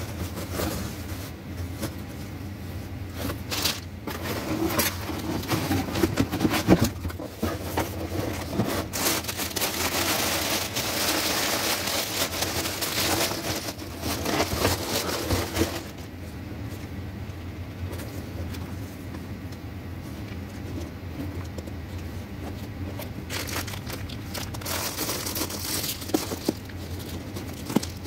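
Tissue paper crinkling and cardboard and fabric rustling as a shoe box is unpacked by hand, with scattered small clicks and scrapes. The crinkling is thickest in the middle stretch, and a steady low hum runs underneath.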